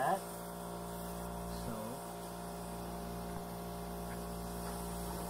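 Steady low electrical hum with no tool running.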